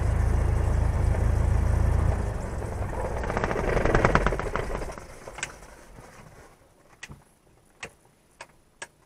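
Cessna 172R's four-cylinder Lycoming engine idling, then being shut down about two seconds in. It rattles as it runs down and is quiet by about six seconds in. A few sharp clicks follow near the end.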